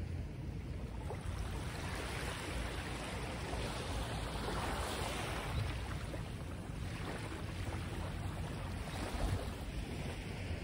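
Steady wash of wind and water with wind rumbling on the microphone, swelling for a few seconds in the middle.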